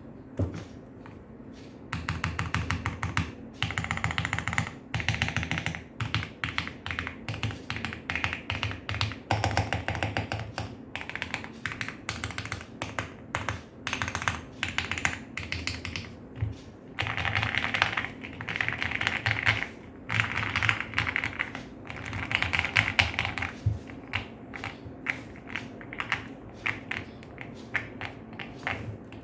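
Typing on a Rexus Daxa M64 mechanical keyboard with lubed Gateron Yellow linear switches, a polycarbonate plate, XDA-profile PBT keycaps and a foam- and tape-modded ABS case. Fast runs of keystrokes come in bursts with short pauses, starting about two seconds in.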